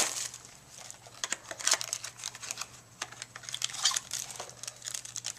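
A trading card pack being opened by hand: the wrapper crinkles and tears, with scattered light clicks and rustles as the cards are handled.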